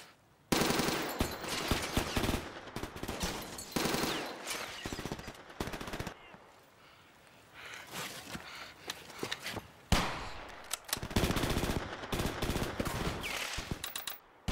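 Battle gunfire: rapid bursts of automatic fire mixed with single rifle shots, with a lull about halfway through before a sharp shot and more bursts.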